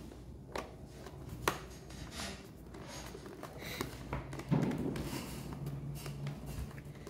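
Hands handling a motorcycle helmet and its intercom parts: a few light clicks and taps, then a louder scuffing rustle about four and a half seconds in.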